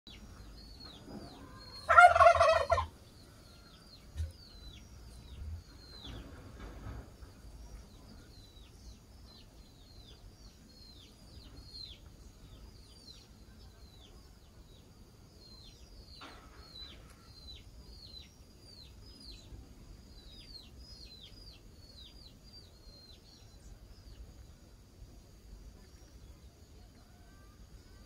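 A domestic turkey gobbles once, loud and rattling, about two seconds in, with a fainter call around six seconds. Through the rest, small birds chirp in short falling notes in the background.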